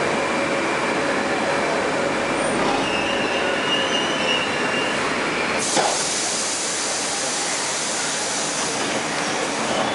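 Metro train (81-760/761 'Oka' car) braking to a stop in a station, heard from inside the car: steady running noise, with a high wheel-and-brake squeal about three seconds in. A sharp clunk comes about six seconds in as the doors open, and a steady hiss follows.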